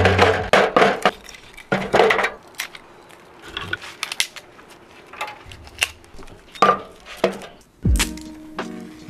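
Split firewood sticks knocking and clattering against each other and the steel walls of a small fire box as they are laid in. A quick run of sharp knocks comes first, then sparser, quieter taps and scrapes.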